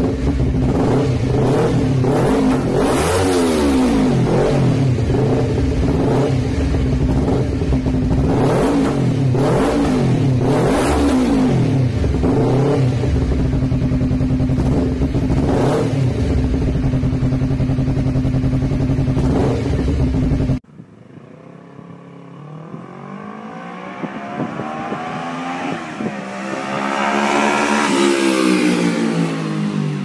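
Honda CBR250RR 180-degree-crank parallel-twin engine through an Akrapovic slip-on exhaust, idling and blipped about eight times, each rev rising and falling quickly. About two-thirds of the way through, a hard cut to a Kawasaki Ninja 650 180-degree parallel twin with an Arrow slip-on accelerating in first and second gear toward and past, growing louder and rising in pitch to a peak near the end.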